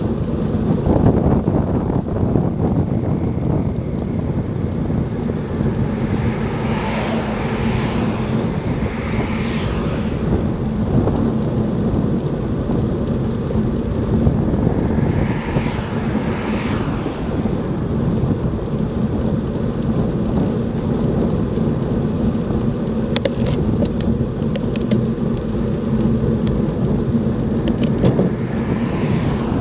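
Steady wind rush on the microphone of a bicycle-mounted camera while riding at speed on the road, with vehicles swelling past twice. A few sharp clicks come about two-thirds of the way through.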